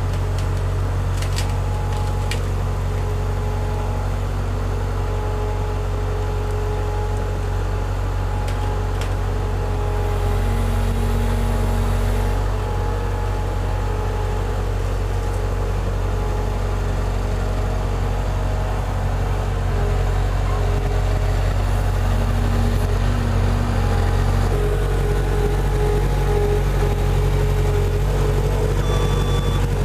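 JCB 135 skid steer's engine running steadily, picking up a little about ten seconds in and again about twenty seconds in. Evenly spaced backup alarm beeps start near the end.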